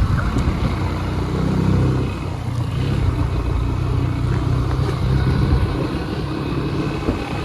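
Motorcycle engine running while riding along a rough off-road track, with steady wind and road noise. The engine tone is strongest in the first two seconds, then settles under the noise.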